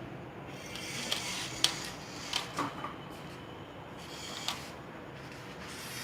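3D-printed robotic arm switched on and running: a faint steady motor whir with several sharp clicks and knocks as the arm moves.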